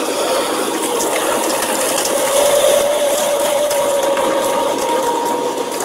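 Stump shredder's toothed steel rotors tearing through tree stumps and roots: a dense, continuous crackle and grinding of splintering wood over a steady machine hum.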